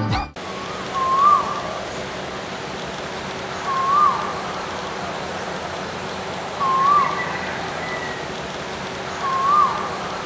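A short whistle-like call, rising then dropping in pitch, repeated four times about every three seconds over a steady hiss.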